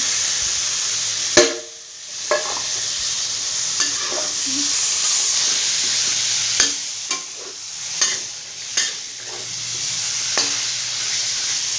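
Chicken pieces sizzling as they fry in curry paste and oil in a stainless steel pot, stirred with a metal spatula. The spatula scrapes and knocks against the pot several times; the sizzle drops briefly after a sharp knock about a second and a half in.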